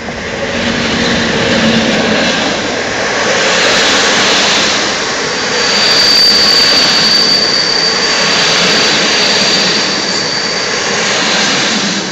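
A passenger train hauled by a PKP EP07 electric locomotive passing close by at speed: loud, steady rushing noise of the coaches' wheels on the rails, with a thin high-pitched whine from about six to ten seconds in.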